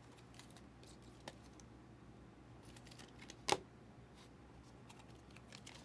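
Quiet handling of trading cards: a few faint clicks and light rustles, with one sharper click about three and a half seconds in.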